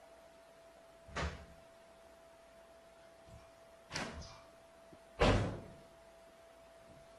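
Three separate bangs, a few seconds apart, the third the loudest, over a faint steady hum.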